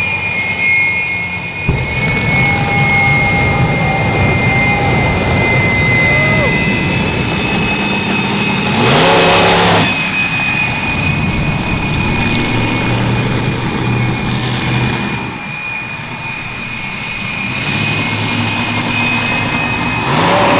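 Turbine jet engine of a jet-powered show vehicle running, with a steady high whine over a heavy rushing noise. About nine seconds in it surges louder for about a second, then settles back.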